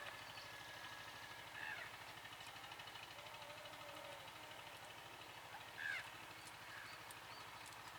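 Birds calling over a faint steady hiss. Two short, clear calls stand out, about two seconds in and again near six seconds, with fainter calls between.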